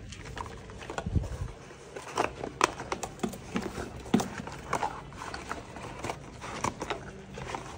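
Handling noise: irregular light clicks, scrapes and rustles as a smartphone and clothing are moved in the hand, with a dull thump about a second in.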